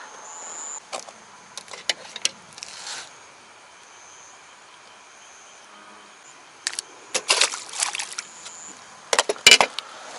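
Scattered clicks and knocks of hands handling fishing tackle and bait on the angler's platform, with the loudest cluster near the end. Under them runs a steady high-pitched trill of night insects.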